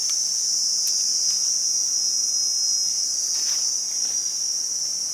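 Steady, high-pitched drone of insects in the forest, unbroken throughout, with a couple of faint handling noises.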